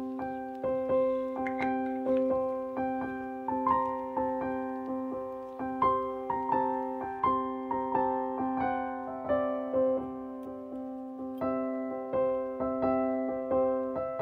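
Background music: a gentle piano piece, with a steady pulse of repeated notes and a slow melody stepping above it, each note struck and fading.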